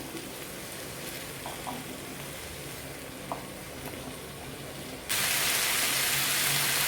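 Brinjal and potato pieces frying in oil in a pan: a quiet sizzle with a few light knocks, then about five seconds in a sudden jump to a much louder, steady sizzle.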